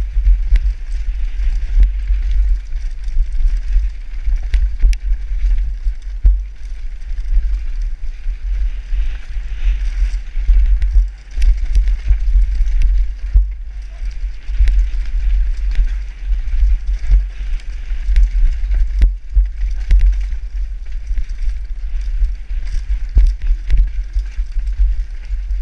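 Downhill mountain bike descending a dirt forest trail at speed, heard from a helmet camera: heavy wind rumble on the microphone and tyre noise on dirt, with frequent sharp clacks and rattles as the bike hits roots and stones.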